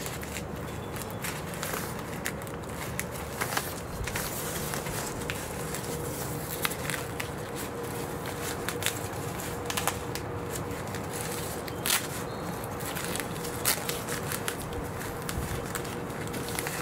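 Fabric window seal being pressed by hand onto hook-and-loop (velcro) tape along a window frame: irregular soft crackles and rustling, over a steady background hiss with a faint steady tone.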